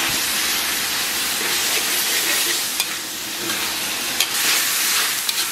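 Diced pork belly sizzling in hot oil in a wok while a metal spatula stirs and tosses it, with a few sharp clicks of the spatula against the wok.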